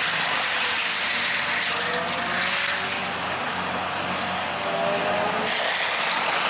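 Heavy wood-shredding machine running as it grinds wood, with steady noise and its engine's pitch drifting up and down under changing load.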